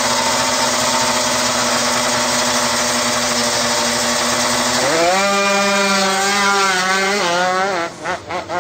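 Kawasaki Ninja motorcycle engine running steadily, then revved up about five seconds in and held with wavering pitch, before the revs fall and the sound cuts in and out in short stutters near the end.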